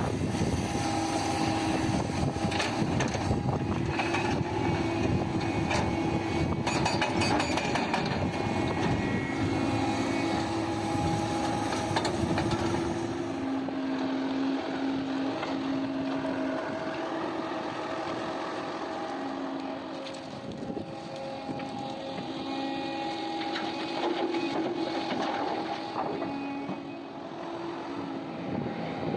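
Heavy diesel mining machinery running continuously, its engine tone shifting in pitch every second or two, with scattered knocks and clatter. It grows somewhat duller and quieter about halfway through.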